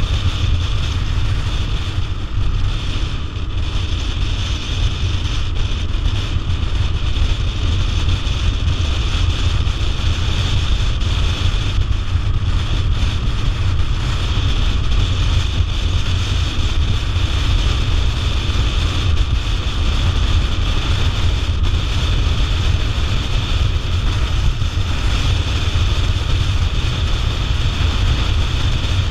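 Wind rushing over the microphone together with the steady drone of an adventure motorcycle being ridden at an even speed, with a heavy low rumble and no change in pace.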